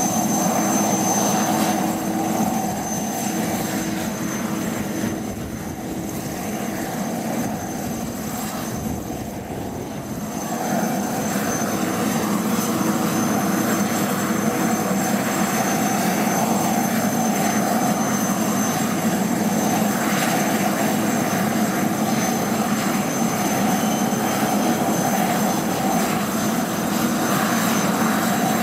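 Aérospatiale Puma HC.1 helicopter running on the ground with its rotors turning: the steady high whine of its twin Turmo turboshaft engines over the hum of the rotor system. The level dips about four seconds in and comes back up around ten seconds in.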